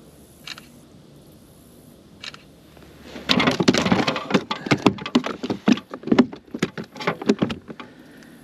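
A bass thrashing and flopping on a kayak: a few lone clicks, then about three seconds in a rapid jumble of slaps, knocks and rattles that lasts about five seconds.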